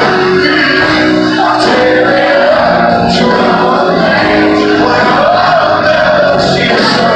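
Live country band with a male lead singer performing a ballad, loud and steady, heard from within the crowd in a large hall.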